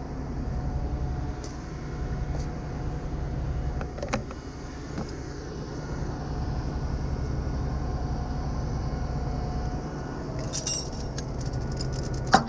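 Tow truck engine idling steadily, with a few scattered metal clicks. From about ten seconds in, steel tow chain links jangle and clank against the underlift, ending in one sharp metal clank.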